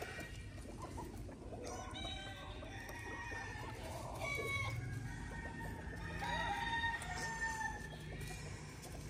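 Ayam Cemani chickens: roosters crowing several times over hens clucking, with the longest crow about two-thirds of the way in.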